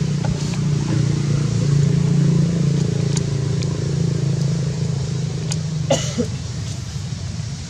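A motor running steadily with a low hum, easing off a little near the end, and a short sharp sound about six seconds in.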